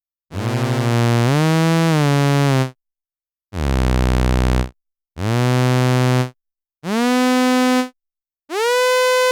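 Behringer Toro analog bass synthesizer sounding five separate single notes with short gaps between them. Several slide up in pitch as they start and one sweeps downward; the last notes are higher.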